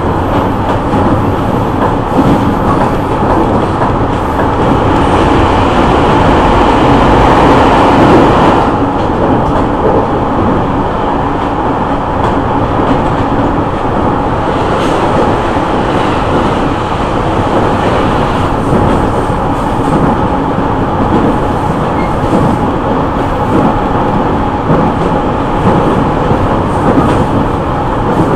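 Running noise inside a JR East E501 series motor car (MoHa E500) with its original Siemens VVVF inverter: steady traction-motor whine over wheel-on-rail rumble at speed. It grows louder for a few seconds about five seconds in, and an oncoming train passes on the adjacent track about halfway through.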